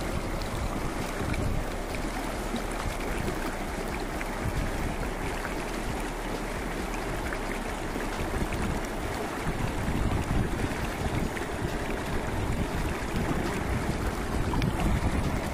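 River water rushing, a steady noise of flowing water with a low rumble underneath that rises and falls.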